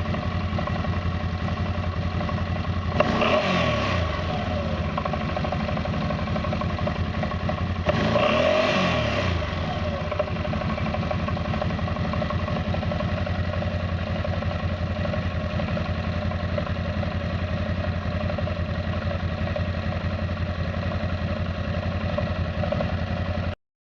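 CFMoto X8 ATV engine idling steadily, blipped up in revs and back down twice, about three seconds in and about eight seconds in; the owner is recording it for a knock in the engine. The sound cuts off suddenly near the end.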